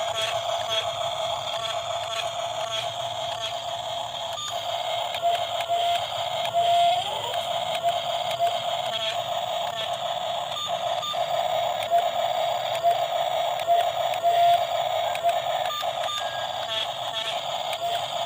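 Steady whine of a toy remote-control excavator's small electric motors and plastic gears, with many short clicks; the pitch briefly rises about seven seconds in.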